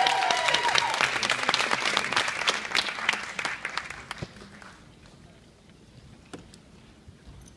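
Audience applauding, with a few high whoops in the first second; the clapping thins out and dies away after about four seconds.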